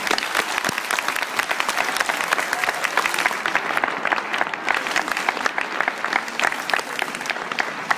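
Audience applauding: many hands clapping together in a dense, steady patter that eases off slightly near the end.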